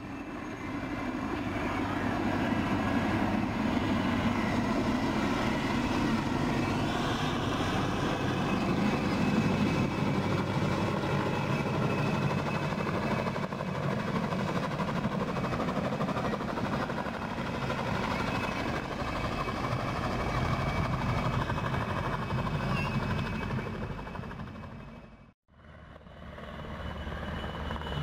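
PZL Mi-2 military helicopter flying past, its rotor and twin turbine engines making a steady, continuous noise. The sound cuts out abruptly near the end and aircraft noise starts again.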